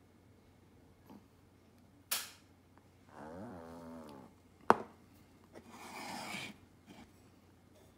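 A Sapporo Lager beer can being opened: a sharp crack of the pull tab a little before halfway, followed about a second later by a short fizzing hiss. Earlier come a softer knock and a brief pitched, wavering sound.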